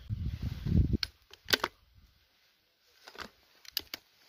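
A scoped break-barrel air rifle being handled and its barrel broken open to cock it: a low rumble for about the first second, then a few sharp mechanical clicks and knocks, the last ones near the end.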